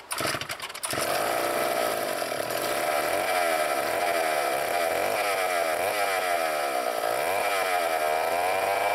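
Vintage Sears D-49 80cc two-stroke chainsaw sputtering as it starts and catching about a second in, then running steadily with its engine speed wavering slightly up and down.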